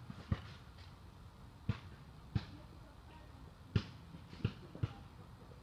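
Basketball bouncing on a hard court: about seven short thuds at uneven intervals, as in dribbling and passing during play.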